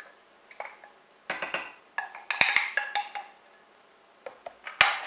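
Clinks and taps of a drinking glass against a metal saucepan as ground peanuts are emptied into it, a few of them ringing briefly. A sharp knock near the end as the glass is set down.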